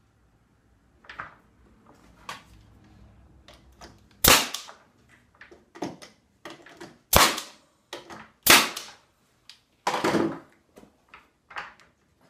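Brad nailer firing brads into the wooden joint where a dowel handle meets a shop cart's frame. There are four sharp shots spread over about six seconds, the first about four seconds in, with light handling knocks before them.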